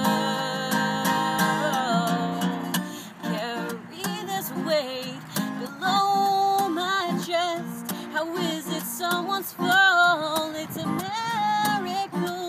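A woman singing a slow song while strumming an acoustic guitar, with held sung notes over steady strums.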